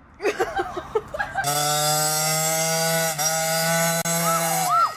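Small single-cylinder engine of a child's mini dirt bike running at high, steady revs for about three seconds, then cutting off abruptly near the end.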